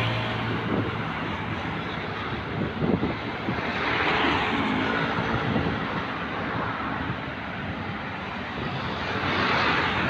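Road traffic passing close by: cars and motorcycles going by one after another, a steady noise of engines and tyres that swells as a vehicle passes about four seconds in and again near the end.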